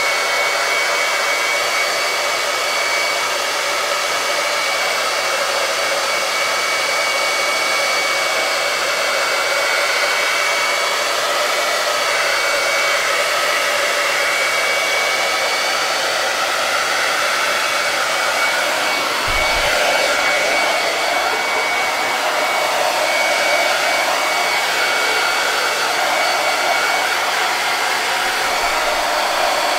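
Handheld hot-air dryer running steadily on one setting with a thin high whine over its rushing air, drying freshly brushed chalk paint on a wood cutout.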